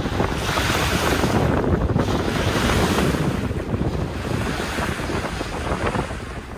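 Wind buffeting the microphone over water washing and splashing along a moving ferry, the hiss of the wash coming in surges every second or so.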